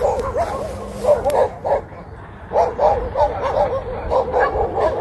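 Several animals giving many short calls in quick succession, each rising and falling in pitch, with a brief pause about two seconds in.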